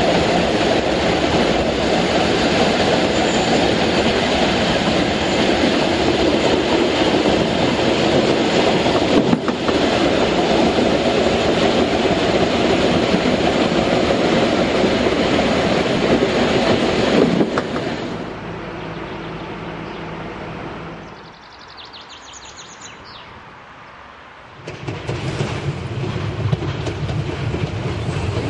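Narrow-gauge train running on the track, a steady rumble and rail clatter, which fades to a quieter hum after about 17 seconds. Near the end a louder low rumble comes in from a steam locomotive, HSB 99 6001-4.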